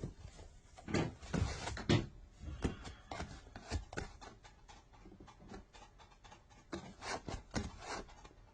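Irregular scuffling from a cat play-fighting with a person: soft knocks, rubs and scratches, in quick clusters that come louder about a second in and again near the end.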